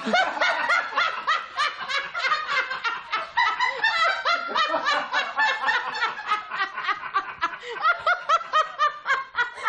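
A woman laughing hard and uncontrollably, quick high-pitched peals one after another without a break.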